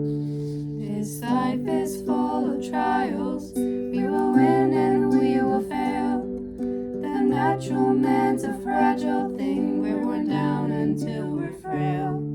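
A solo voice singing a slow, gentle song over a plucked acoustic guitar accompaniment; the guitar plays alone for about the first second before the voice comes in.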